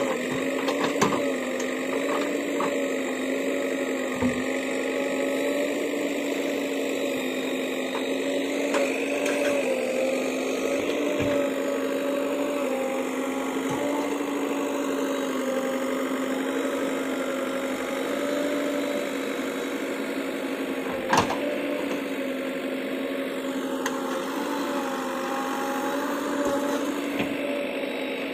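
JCB backhoe loader's diesel engine running steadily at a constant speed, with a few knocks, the loudest about 21 seconds in.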